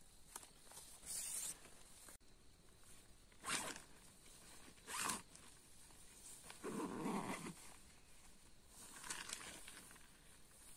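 About five short, quiet rasping strokes spaced irregularly, with the longest and lowest one about two-thirds of the way through.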